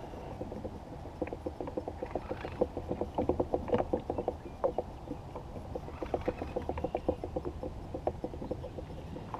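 River water lapping against the hull of a small fishing boat: a quick, irregular run of light slaps and ticks over a low steady rumble.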